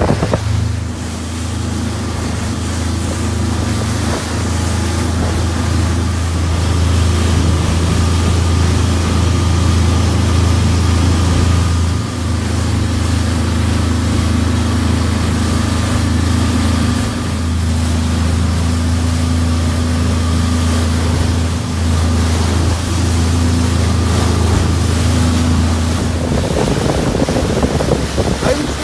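Fishing boat's engine running at cruising speed, a steady low drone, with water rushing past the hull and some wind on the microphone.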